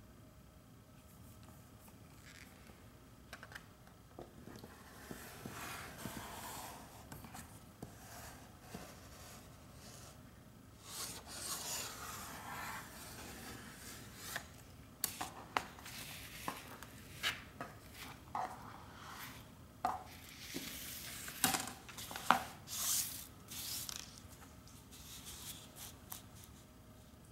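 Paper and thin plastic film rustling and scraping as the excess silicone adhesive film is cut and pulled off the margins of a mounted rice-paper painting, with sharp clicks and ticks from the blade and handling. The rustling grows louder and busier about halfway through.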